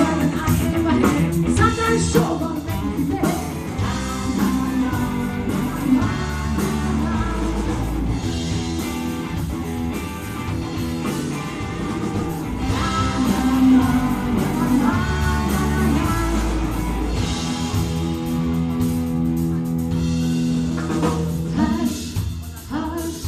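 Live band playing with a woman singing lead, over electric guitar, electric bass and a drum kit.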